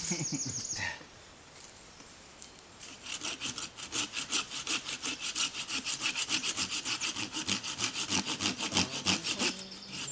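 Hand saw cutting through wood in quick back-and-forth strokes, about four a second. The strokes stop briefly about a second in, then resume and run steadily until shortly before the end.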